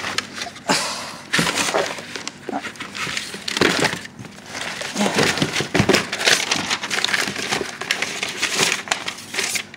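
Papers rustling and crinkling, with irregular shuffles and handling noises as someone rummages through a tote full of paperwork.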